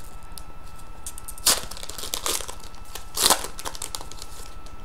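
A hockey card pack's wrapper being torn open and crinkled by hand in a few short rustles, the loudest about one and a half and three and a quarter seconds in.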